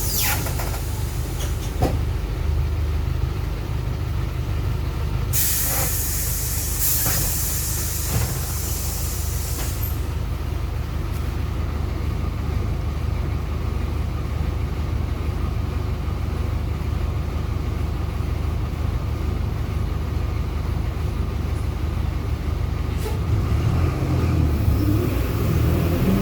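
Marcopolo Sênior Midi bus on an Agrale MA 15.0 chassis, heard from inside while driving: a steady low drone of engine and drivetrain, with the differential running very loud. About five seconds in, a hiss lasts several seconds. Near the end the drone rises in pitch and gets louder as the bus picks up speed.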